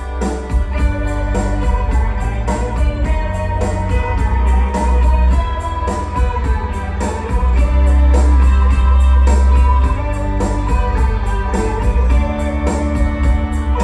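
Instrumental intro of a rock song with guitar, strong bass and a steady drum beat.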